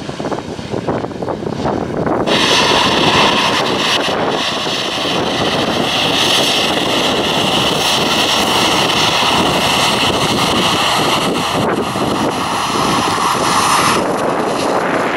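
Wind buffeting the microphone, then from about two seconds in the steady whine and hiss of a Boeing 737-800's CFM56 turbofans at taxi power, passing close by. The high part of the sound drops away near the end.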